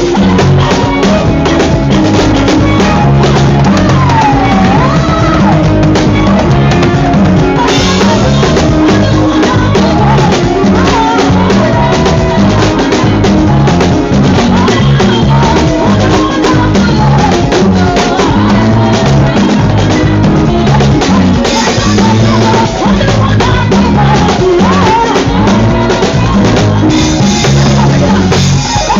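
Loud music with drums and a steady beat, with some singing.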